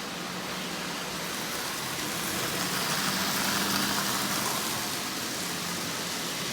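Marx double reduction toy train motor running at about half power in a wind-up locomotive shell, with a ten-car train rolling along tinplate track. It makes a steady whirring rattle over a low hum, swelling louder through the middle as the train passes closest.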